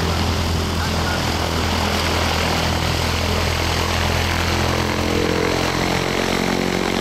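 A small propeller-driven biplane's piston engine drones steadily as the plane flies past. The engine note grows clearer and stronger about five seconds in as the plane comes nearer.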